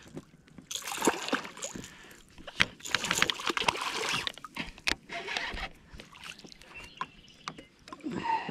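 A hooked bass thrashing and splashing at the surface beside a kayak, in irregular bursts of splashing with sharp clicks and knocks from the rod, reel and hull in between.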